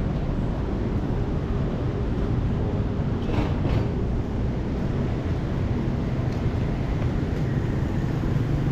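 City street ambience: a steady low rumble of road traffic, with two brief hisses about three and a half seconds in.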